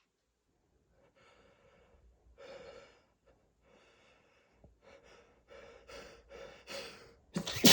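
A person breathes unevenly in a dust-triggered sneezing fit: soft breaths at first, then quicker, catching gasps from about halfway through as the next sneeze builds. A sneeze breaks out right at the end.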